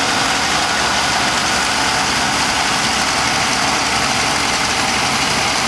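Claas Consul combine harvester running while harvesting: its engine, cutter bar and threshing machinery make a steady, loud mechanical din.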